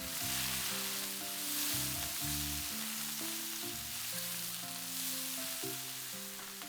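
Food sizzling as it fries in hot oil in a pan, with a gentle melody of background music.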